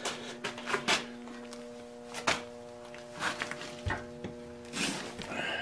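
Treadmill motor driving a 4x6 horizontal band saw through a belt and pulley, running at a steady speed with a steady hum. Scattered knocks and rattles sound over it.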